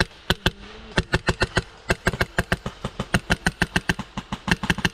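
Airsoft gun firing a long string of rapid shots, about seven a second, with brief pauses between runs.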